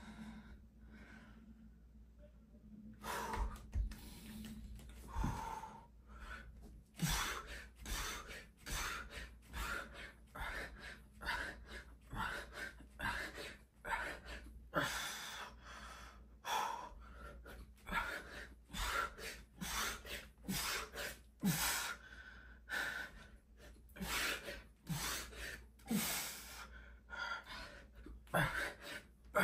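A man breathing hard through a set of push-ups, in quick, sharp breaths in and out, about two a second, starting about three seconds in.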